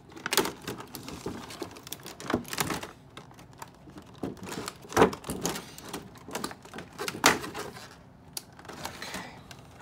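Stiff clear plastic packaging crackling and clacking as it is handled and pulled out of a doll box, with a few sharp, louder snaps of the plastic.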